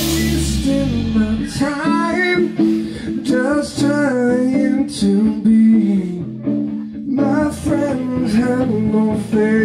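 Live rock band playing: electric guitar, bass guitar and drum kit, with a man singing over them with wavering, bending notes and occasional cymbal hits.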